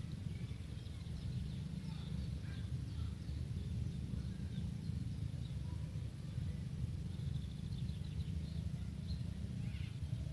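Outdoor background of a steady low rumble, with faint short high chirps of small animals calling now and then, a brief falling cluster of them near the end.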